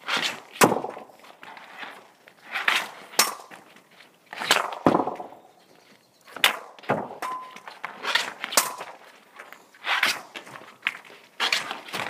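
Seven slap shots in a row. Each is a crack of the stick on the puck, then about half a second later a louder hit as the puck strikes the net or the concrete boards behind it. The shots come about every one and a half to two seconds.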